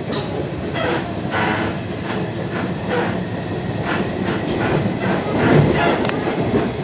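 Interior noise of a Nishitetsu 2000 series electric train car: a steady low rumble with short irregular knocks and clatter.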